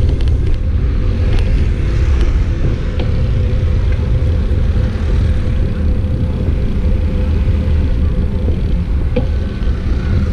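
Wind buffeting the microphone of a camera on a moving bicycle: a steady low rumble, with a few faint clicks.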